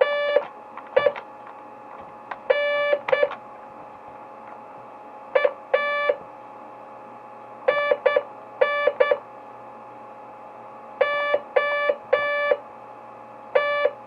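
Morse code keyed on a Digi-Tech toy base-station walkie-talkie's built-in code buzzer: short and long beeps of one buzzy mid-pitched tone, sent in letter groups with pauses of a second or two between them. A faint steady hum runs underneath.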